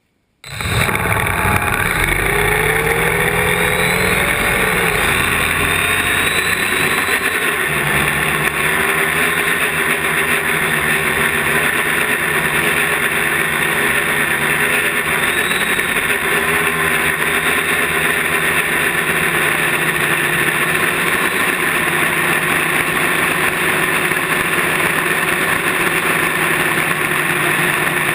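Quadcopter's electric motors and propellers starting up and running, heard from a GoPro mounted on the drone itself. The sound cuts in suddenly, its pitch wavers as the drone lifts off in the first several seconds, then it settles into a steady, loud whir in flight.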